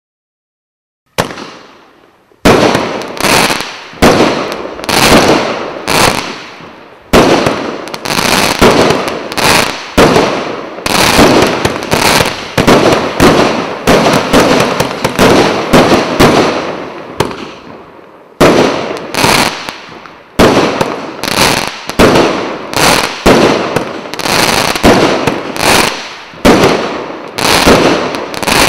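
A 49-shot, 1-inch-calibre consumer firework cake firing its shots in quick succession: sharp bangs, each fading out over about a second. The first shot comes about a second in, and there is a brief lull about two-thirds of the way through.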